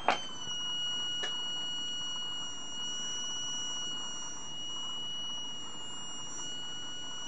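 Heathkit HW-22A transceiver's function switch clicks into the tune position, and a steady high-pitched whine drops slightly in pitch as the transmitter keys up into a dummy load. A second small click comes about a second later.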